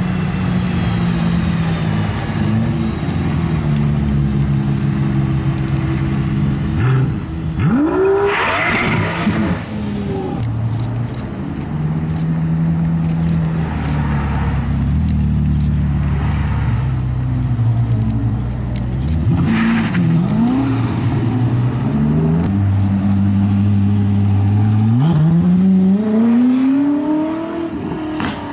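Racing car engines running and revving, their pitch holding and stepping up and down. One sweeps sharply up in pitch about a third of the way in, and another climbs steadily near the end as a car accelerates.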